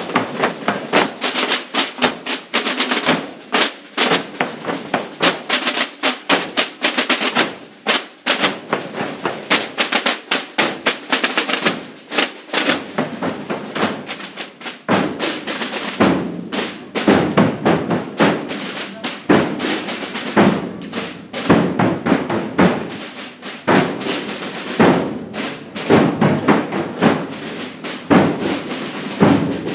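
Holy Week procession drum section: many snare-type marching drums beaten with sticks in a dense, insistent rhythm with rolls.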